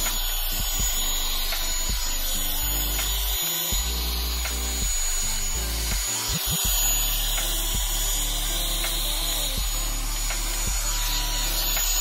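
Background music with a changing bass line, over the steady airflow hiss and high motor whine of a Revlon One Step hot-air brush dryer running.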